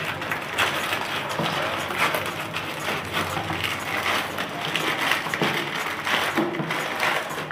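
White plastic courier mailer bag crinkling and tearing as a knife slits it and hands pull it open: a continuous rustle with many small crackles.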